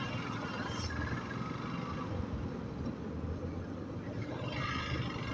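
Motorcycle with a stock exhaust running at a steady cruise, its low engine rumble mixed with wind and road noise.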